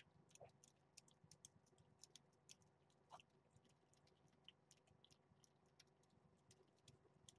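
Faint, irregular small wet clicks and smacks of a mother cat and kittens chewing and licking soft wet food from a plate.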